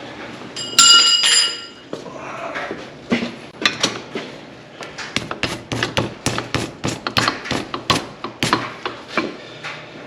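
Steel engine parts being handled on a workbench: one ringing metallic clang about a second in, then a run of quick light knocks and clinks as parts are set down and fitted together.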